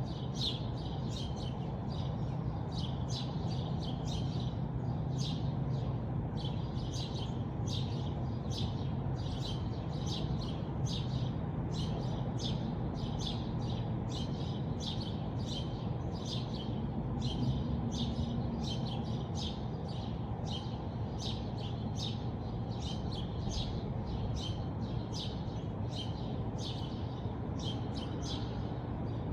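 A small bird chirping over and over, short high chirps at roughly two a second, with a steady low rumble of background noise underneath.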